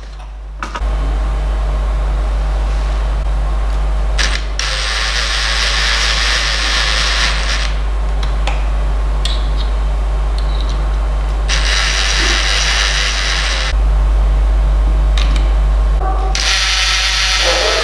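Makita cordless drill-driver driving screws, running in three bursts of a few seconds each, over a steady low hum.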